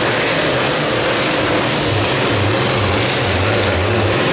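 Case IH 8920 super stock pulling tractor's diesel engine running flat out under load while dragging a weight-transfer sled, its pitch wavering up and down, over a loud rushing hiss.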